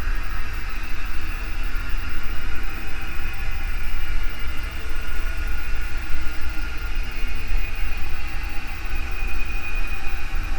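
Haunted-house ambience sound effect: a steady deep rumble with a hissing layer above it, carrying faint, slowly drifting tones.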